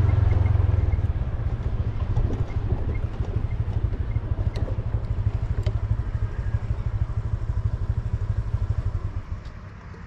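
Small motor scooter engine running as it rides along a dirt track, a low pulsing rumble that gets quieter near the end.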